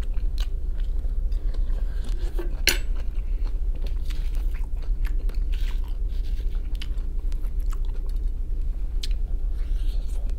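Close-up chewing and biting of fried capelin and boiled potato, with small clicks of a fork against the plate and one sharp clink about two and a half seconds in. A steady low hum runs underneath.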